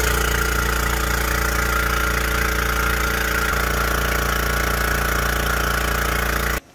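Kobalt Quiet Tech 26-gallon oil-free twin-cylinder air compressor running really loud, a steady motor hum with a strong hissing rush over it, cutting off suddenly near the end. The hiss is air leaking past a torn piston cup inside the cylinder.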